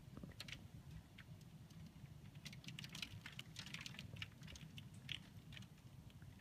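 Hailstones ticking and pattering faintly and irregularly, heard from indoors behind window glass, with a thicker flurry of taps in the middle. A low steady rumble lies underneath.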